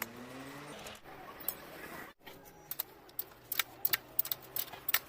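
Irregular sharp metallic clicks and clinks of hand tools and metal parts while a motorcycle wheel is fitted, over a faint low hum, with a few abrupt breaks.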